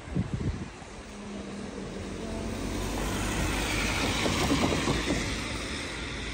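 A road vehicle drives past: its tyre and engine noise grows louder to a peak about four to five seconds in, then fades.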